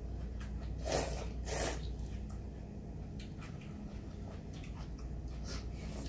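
Ramen noodles slurped from a bowl, two loud slurps about a second in, followed by chewing and scattered light clicks of chopsticks and metal bowls. A steady low hum runs underneath.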